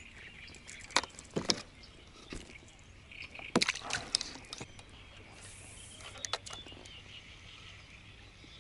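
A small perch being swung in on the line and handled over the side of an inflatable kayak: a series of sharp clicks and knocks from the lure, fish and hand, and a brief splash of water.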